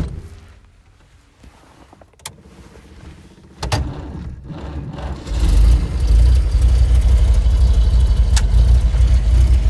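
1929 Buick's straight-six engine starting about three and a half seconds in after a click, then running as a loud, steady low rumble.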